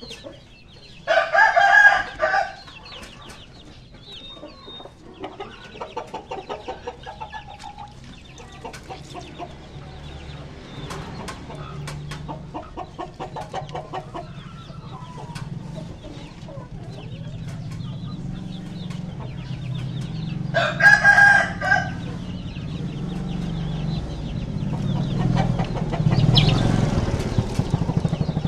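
Chickens: a rooster crows twice, about a second in and again about 21 seconds in, with short repeated clucks between. A low hum builds in the second half.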